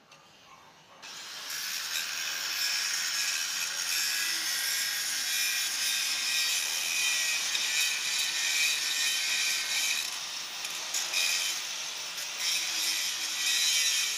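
Angle grinder grinding on a steel pipe weld. It starts about a second in and runs steadily with a high, grating sound, easing off briefly twice near the end.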